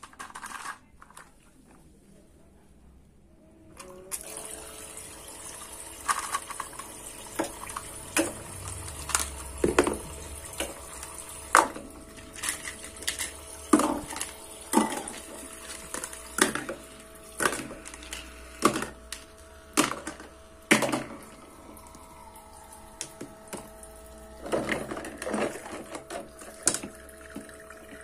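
A toy sink's little water pump starts about four seconds in and runs with a steady hum while water trickles from the toy faucet. Hard plastic toy plates and cups clack repeatedly against a plastic dish rack.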